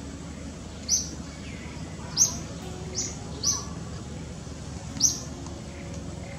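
A bird chirping five times in short, high, slightly falling notes, spaced irregularly about a second apart, over a steady low outdoor background.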